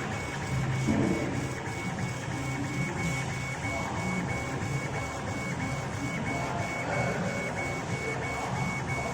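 CO2 laser engraver at work engraving acrylic: the laser head's stepper-driven carriage sweeping back and forth in a steady rhythm, with a pulsing whine about two to three times a second over a steady low hum.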